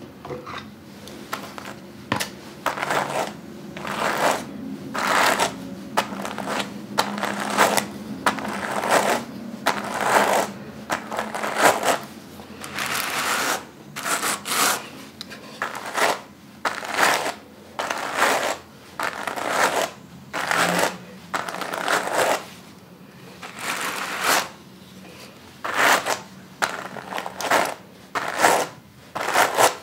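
Raw wool being carded by hand between two wooden hand cards, the wire teeth of one card drawn across the other in repeated brushing strokes, about one a second and sometimes in quick pairs.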